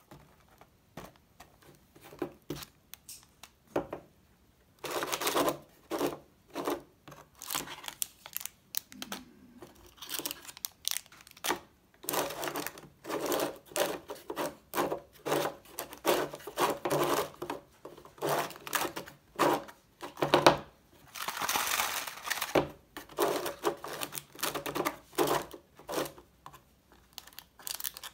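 Laser-cut plywood gacha dispenser being worked by hand: the turning knob and wooden mechanism give many sharp clicks and rattles, mixed with crinkling of plastic candy wrappers as packets drop and are pulled from the chute.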